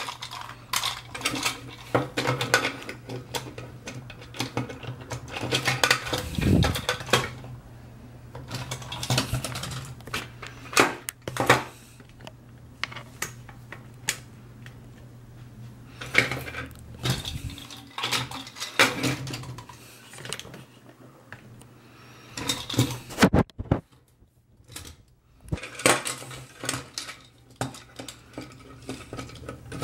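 Hard plastic pieces of an Iron Man vs Hulk battle toy clattering and clicking as they are handled, in irregular knocks of varying loudness, over a low steady hum.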